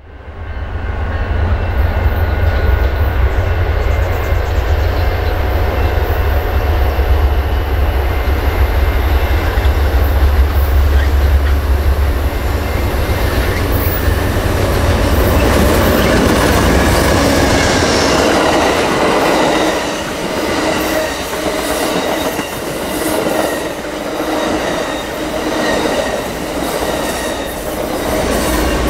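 Amtrak passenger train led by GE P42 diesel locomotives approaching and passing at speed: a deep engine rumble builds as the locomotives close in, the loudest rush of engine and wheel noise comes as they go by about halfway through, then a rhythmic clatter of wheels over the rail joints as the double-deck Superliner cars roll past.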